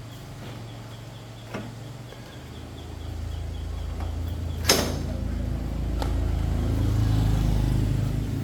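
A motor vehicle's engine rumbling, growing louder and then easing off, with a sharp click about halfway through and a couple of fainter ticks.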